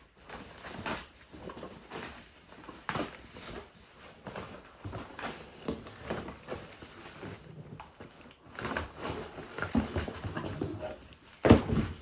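Scattered rustling and light knocks from climbing sticks and their packaging being handled, with one louder knock near the end.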